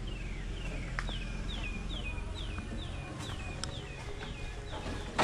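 A bird singing a run of repeated falling whistled notes, about two a second, over steady outdoor background noise. A sudden knock right at the end.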